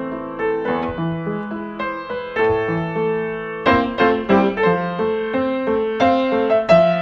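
Upright piano played solo: a steady run of notes over repeated bass notes, becoming louder and brighter about halfway through.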